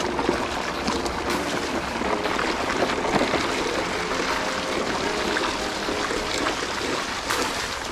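Shallow creek water running over stones, a steady rushing noise.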